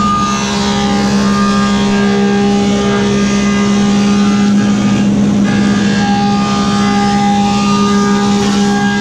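Woodmaster 725 planer with a helical cutterhead running steadily while hardwood boards are fed through it: a loud, even hum with a steady whine above it.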